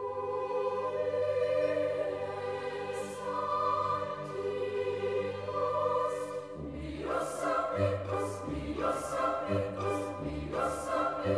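Background choral music: a choir holds long sung chords, and about six and a half seconds in a beat of percussion strikes joins it.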